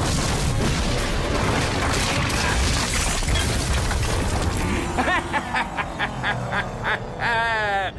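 Cartoon explosions booming and rumbling with sharp cracks for about five seconds. Then a man laughs: a quick run of short 'ha's and one long wavering 'ha' near the end.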